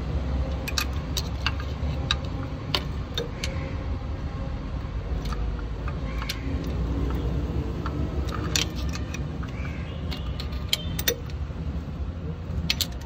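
Light metallic clicks and clinks of a screwdriver and hand tools against a Piaggio Ape's clutch pressure plate, scattered irregularly and busiest about two-thirds of the way in, over a steady low rumble.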